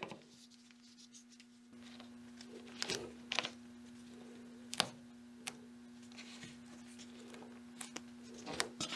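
Faint scratching and a few small clicks from fingers pressing double-sided mounting tape onto small plastic cable clamps. A low steady hum comes in about two seconds in.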